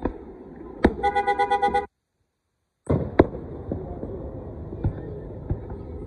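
Aerial fireworks shells bursting, with sharp bangs about a second in and again about three seconds in, followed by crackling and smaller pops. Just after the first bang a car horn sounds a rapid string of short honks for about a second. The sound cuts out completely for about a second in the middle.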